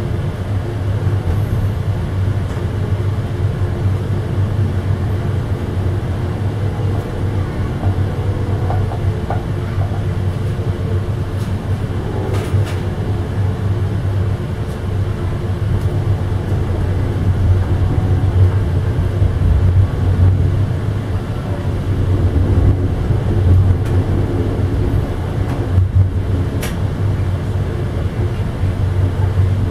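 Steady rumble of a moving passenger train heard from inside the rear car: wheels running on the rails, with a couple of faint clicks.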